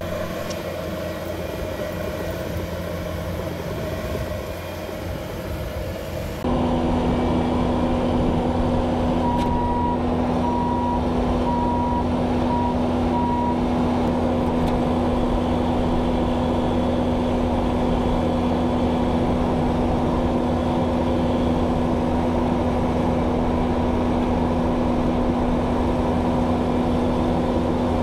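Bobcat T650 compact track loader's diesel engine running, then from about six seconds in a louder, very steady run with a constant hum as the engine works at high throttle driving a hydraulic power-rake soil conditioner through bare soil. A beeping alarm sounds about five times in the middle.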